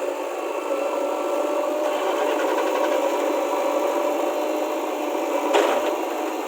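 Heavy diesel engine running steadily, with a constant drone and a single sharp knock about five and a half seconds in.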